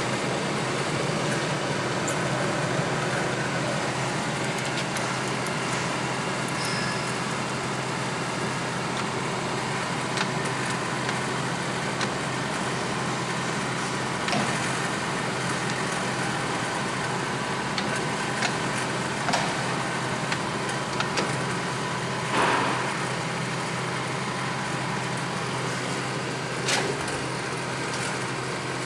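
Clausing Colchester Master 2500 engine lathe running steadily, with a faint whine over the machine noise. A few light knocks or clicks come through during the run.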